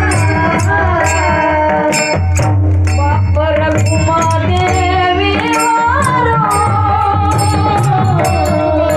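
Devotional song in raga Bhairavi: a voice sings long, gliding melodic phrases over a steady drone, with a drum and regular metallic percussion strokes keeping the beat.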